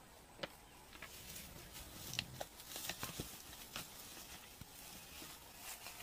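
Faint, irregular clicks and rustling from a spotted hyena feeding on an impala carcass in long grass.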